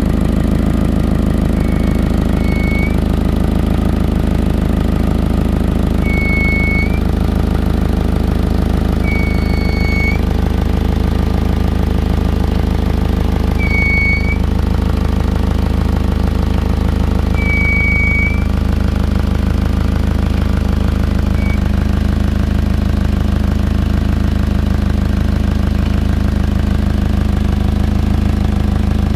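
2006 Toyota Camry XLE engine idling steadily, its exhaust heard from close by; the owner suspects an exhaust leak or a clogged catalytic converter. Short high-pitched chirps sound every three to four seconds during the first two-thirds.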